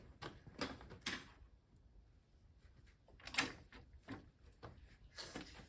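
Scattered light knocks, bumps and shuffling as people sit back down on chairs, with one louder knock about three and a half seconds in.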